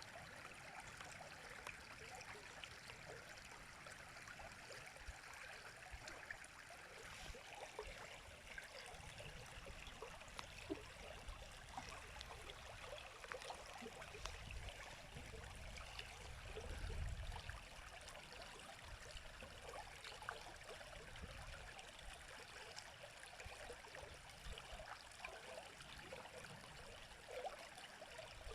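River water running: a steady rushing and trickling with small splashes scattered through it. A low rumble swells and fades about halfway through.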